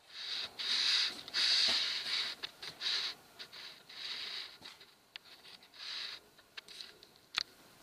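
Irregular rustling in short hissy bursts, with scattered light clicks and one sharper click near the end.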